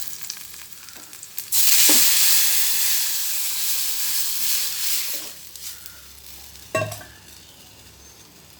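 Tamarind water with ground tomato, pepper and garlic poured into hot oil and sautéed shallots in a pan: a sudden loud sizzle about a second and a half in that slowly dies down. A single sharp knock near the end.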